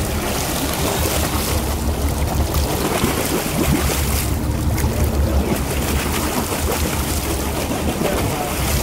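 Steady wind and water noise on open sea from a boat: a constant low rumble under an even hiss, with no distinct sounds standing out.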